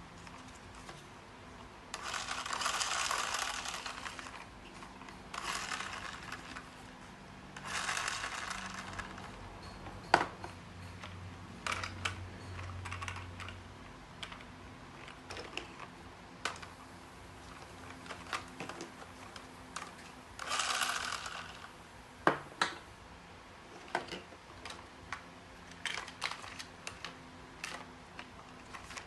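Irregular clicks and taps of small hard objects being handled, with a few longer scraping passes and a couple of sharper knocks.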